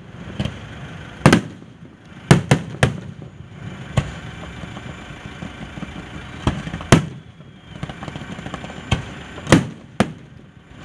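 Fireworks display: aerial shells bursting in about a dozen sharp bangs at irregular intervals, some in quick succession.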